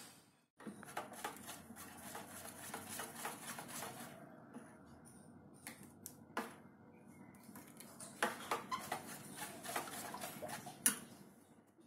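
Faint scraping of a steel spoon stirring and beating besan (gram-flour) batter in a steel bowl, with quick clicks where the spoon taps the bowl's side. The clicking thins out briefly midway and is thickest near the end.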